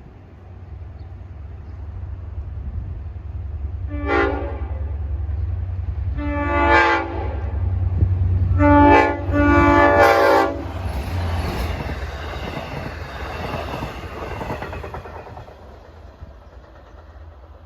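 Nathan K5LLA multi-chime air horn on a Long Island Rail Road diesel locomotive sounding four blasts for a grade crossing, the third short and the fourth the longest. The train then passes with a low engine rumble and rail noise that fades away.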